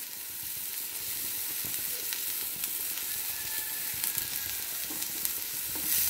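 Chopped banana flower and onions sizzling in hot coconut oil in a frying pan. Near the end a wooden spatula starts stirring and scraping through them and the sizzle grows louder.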